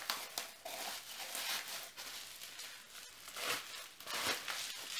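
Crinkling and rustling of a small gift tag and packaging being handled, in irregular bursts with a couple of louder rustles near the end.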